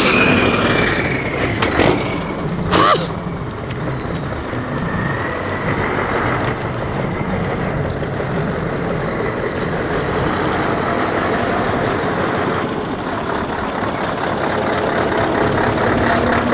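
Scania 143M 450 V8 truck driving slowly by and manoeuvring, its engine running steadily through a free-flowing exhaust, with two short hisses of air about two and three seconds in.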